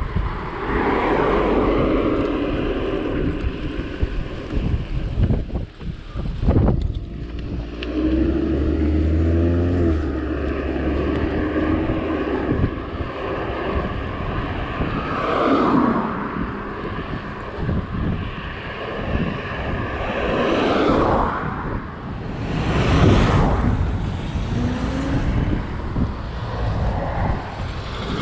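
Wind rushing over the microphone while cycling on a road, with several motor vehicles going past. The engines swell and fade, and the pitch of a few of them drops as they pass.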